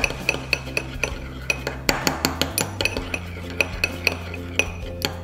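Metal spoon stirring melted garlic butter in a small ceramic ramekin, clinking against the bowl's sides and bottom in rapid, irregular clicks that ring briefly.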